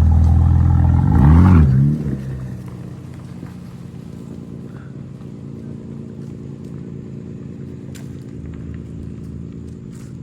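Car engine running through a newly fitted aftermarket MAD exhaust: a short rev that rises and falls about a second in, then the engine runs on steadily and much more quietly.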